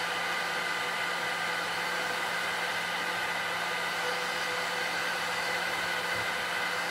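Hot-air heat gun blowing steadily, a rush of air with a faint steady whine, held just over a graphics card's GPU chip to reflow its solder.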